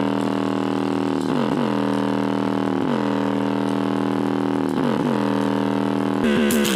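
A small 3-inch subwoofer playing a steady, buzzy electronic bass drone for a sound test, its pitch swooping down and back about every second and three-quarters. Near the end it switches to a busier, rhythmic pattern with ticks and deeper bass.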